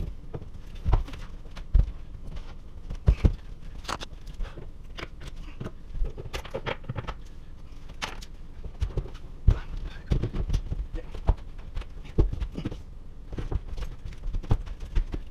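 Scattered knocks and thumps, some sharp, as a plywood base cabinet is shimmed and pressed into level, with footsteps on a hardwood floor.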